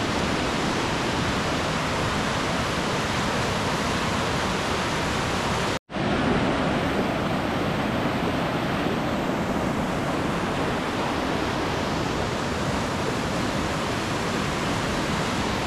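River rapids rushing in a loud, steady roar of white water. It cuts out for an instant about six seconds in.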